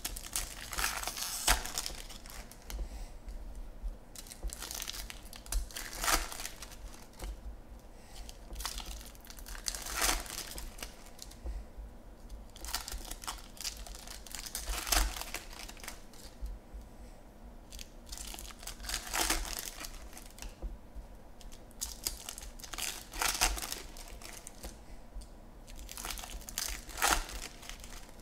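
Foil wrappers of Topps Chrome baseball card packs being torn open and crinkled, in bursts about every four seconds.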